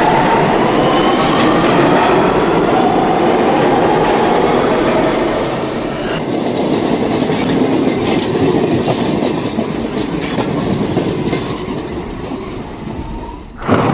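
New York City subway train pulling out of a station, its motors whining and rising in pitch as it speeds up, over the rumble and clatter of the wheels on the rails. The sound cuts off abruptly near the end.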